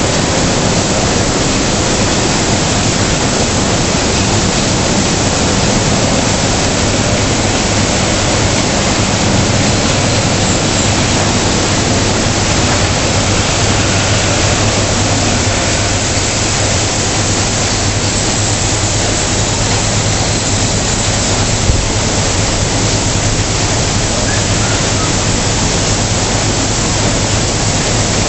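Automatic tunnel car wash running: a steady rush of water spray and cloth curtains and brushes swishing over a car, over a constant low machine hum.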